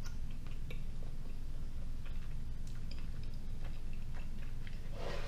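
Close-up chewing of a large mouthful of chicken cordon bleu, with faint, scattered small mouth clicks over a steady low background hum.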